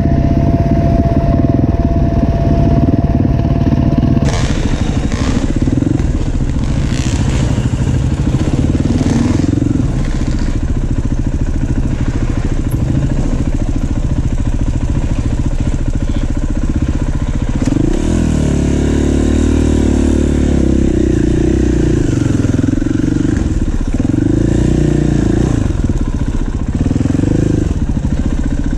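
KTM EXC-F four-stroke single-cylinder dirt bike engine running as it is ridden, the revs rising and falling with the throttle, most plainly in the second half.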